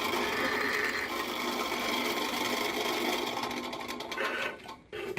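A small motorized machine running with a fast, even mechanical chatter that dies away near the end, followed by a short final burst.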